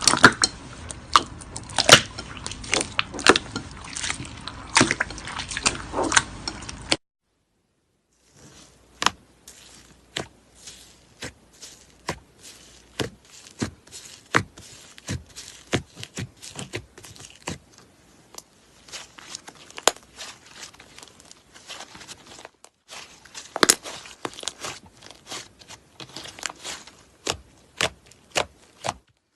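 Slime being squeezed and pressed by hand, with a run of quick sticky clicks and pops from trapped air. The sound stops for about a second near the quarter mark, then goes on with sparser pops.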